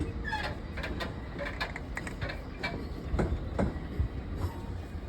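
Wagons of a freight stone train rolling slowly on the rails: a steady low rumble broken by irregular knocks and clanks from the wheels and couplings, a few louder ones about three to four seconds in.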